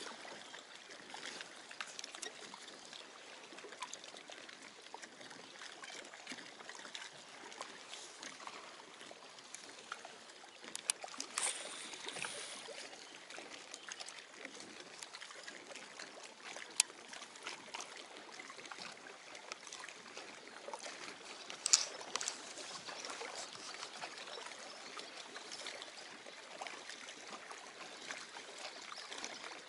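Small lake waves lapping and trickling against the concrete shoreline, a steady soft wash. A few sharp clicks stand out, about eleven, seventeen and twenty-two seconds in, the last one the loudest.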